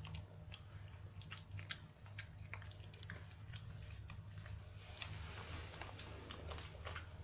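Small dog (a Pekingese) chewing and crunching dry treats, a faint run of irregular crisp bites and clicks.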